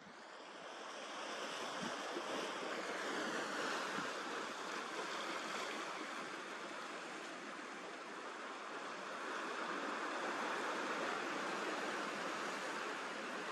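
Sea surf washing against a rocky shore, a steady rushing noise that swells gently.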